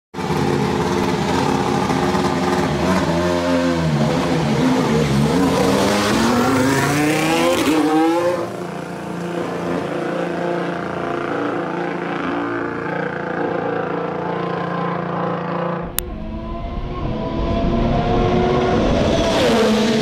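Formula 1 car with a Honda RA619H 1.6-litre V6 turbo-hybrid engine running on track. The engine note drops through downshifts about three seconds in, then climbs steeply under acceleration until about eight seconds, runs steadier and further off, and after a sharp click about sixteen seconds in rises again near the end.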